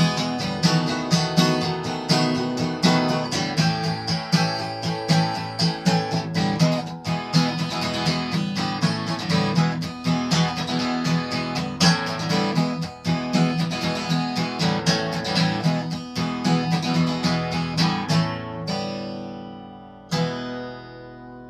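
Acoustic guitar playing the closing bars of a slow blues, picked and strummed, until a chord is left ringing about eighteen seconds in. One last chord is struck about twenty seconds in and fades out.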